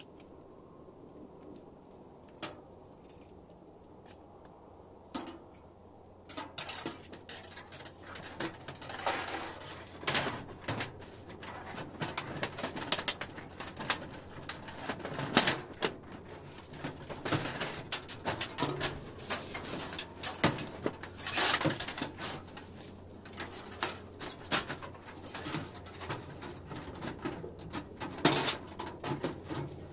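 Wood fire crackling inside a small titanium tent stove: irregular pops and snaps that start about six seconds in and keep going, over a low steady hum.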